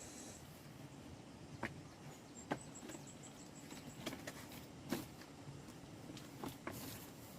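A few scattered light clicks and taps, about six, over a low background hiss, with a faint, rapid, high-pitched ticking for about a second and a half early in the middle.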